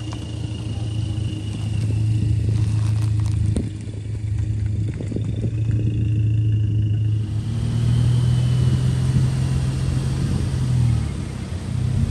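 Lowered VW Passat driving past on the street, its engine and exhaust giving a steady low drone that dips briefly about four seconds in and runs on until near the end.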